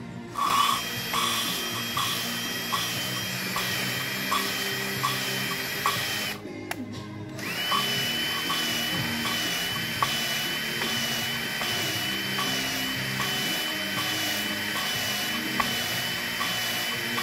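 Electric drill running steadily with a high whine, spinning a used exhaust valve through a length of hose pipe to lap it into the Honda XR650R cylinder head's seat with grinding paste. It runs in two long stretches with a short stop about six seconds in, with a light tick about twice a second. Music plays underneath.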